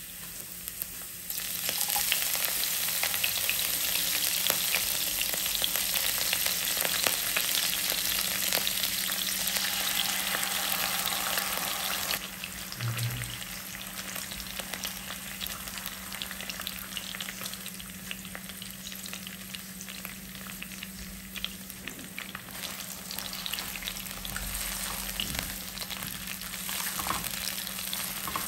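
Chopped garlic frying in hot oil in a wok: a loud, steady sizzle that starts about a second and a half in. About twelve seconds in it drops to a quieter sizzle with scattered crackles, once tomato ketchup is in the pan.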